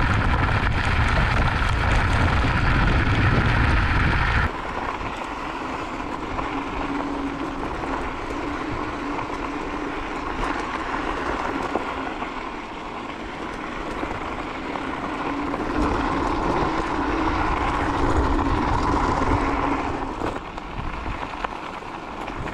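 Ride noise from an electric scooter with knobby off-road tyres rolling over a dirt and gravel trail. Heavy wind rumble on the microphone for the first four seconds, then a sudden cut to a quieter stretch of tyre and trail noise with a faint hum in places.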